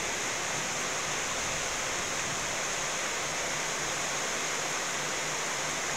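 Steady, even rushing hiss of water, unchanging throughout, strongest in the high treble.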